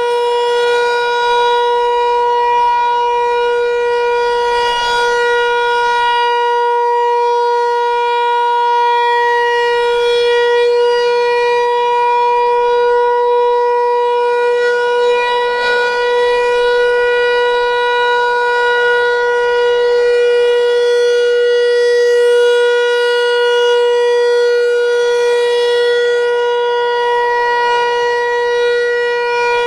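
Federal Signal Equinox electronic outdoor warning siren sounding its Alert signal: one steady, unbroken tone with no rise or fall in pitch. The tone swells in loudness about every five seconds as the siren head turns.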